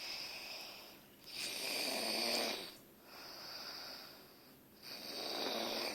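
A sleeping man snoring, breath after breath: four snores, the loudest about two seconds in.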